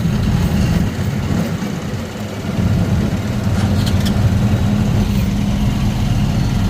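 Motorcycle engine of a Philippine tricycle running as it rides through town. It eases off about two seconds in, then picks up again.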